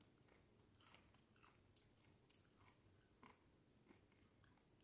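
Very faint chewing of a bacon, lettuce and tomato sandwich: scattered soft mouth clicks and small crunches, the clearest a little past two seconds in and again just past three seconds.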